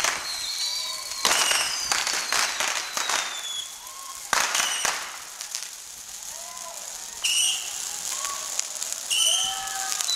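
Hat-mounted fireworks going off: several bursts of crackling sparks mixed with whistling tones that slide, mostly falling in pitch.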